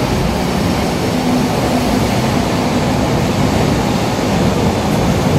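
Yellow Berlin U-Bahn train running past the platform at close range: a loud, steady rumble of wheels on rails and the train's running gear.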